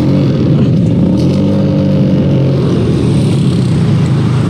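Vespa scooter engine revving under load as the rider tries to get it moving, its pitch rising about a second in and then holding high.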